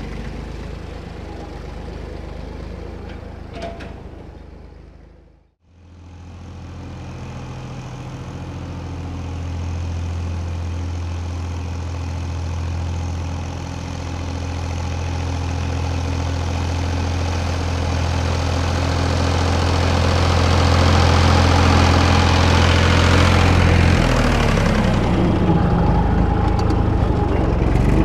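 Fordson Dexta tractor's three-cylinder diesel engine running steadily while pulling a field roller. It fades out to a cut about six seconds in, then approaches and grows steadily louder. It passes close by near the end, with the roller rolling over the soil right beside the microphone.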